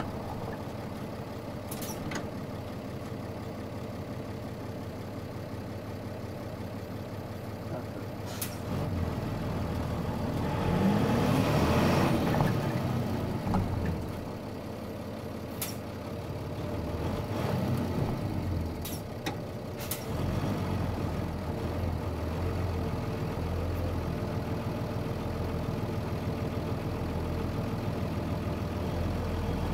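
Nissan Diesel Space Runner bus diesel engine heard from inside the cabin, running quietly at first, then revving up with a rising note about ten seconds in. It eases off around fourteen seconds and picks up again a few seconds later. A few sharp clicks come through over the engine.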